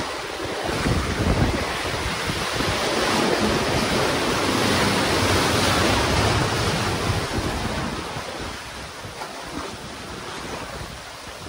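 Sea surf surging and churning through a narrow rock arch, a rushing wash of water that builds to a peak mid-way and then eases off, with wind buffeting the microphone.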